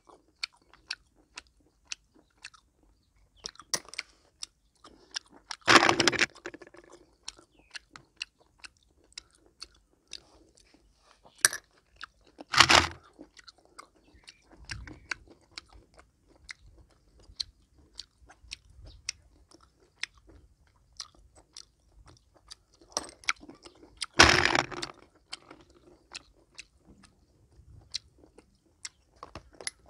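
Close-up eating of cooked small snails: chewing and mouth noises, with many light clicks of snail shells and a wooden toothpick. Three louder mouth noises come about 6, 13 and 24 seconds in.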